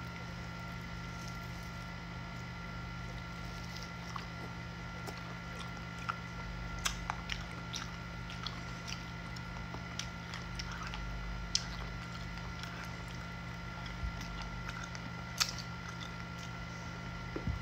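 A person chewing and eating meat picked up by hand, with occasional short sharp clicks and mouth smacks, over a steady electrical hum.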